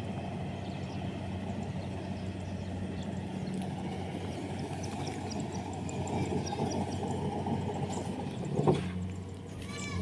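Kubota DC-70 combine harvester running steadily while cutting rice: a low, even engine drone mixed with the noise of its cutting and threshing gear. A brief louder bump comes near the end.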